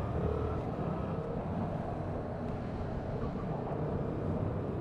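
Motorcycle engine running under steady wind and road noise.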